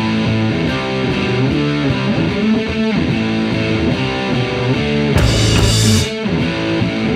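Rock music with a distorted electric guitar, steady held notes changing every second or so.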